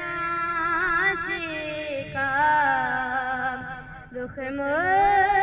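A solo voice singing a naat, drawing out long, ornamented held notes that bend up and down, with a short break for breath about four seconds in before the next phrase.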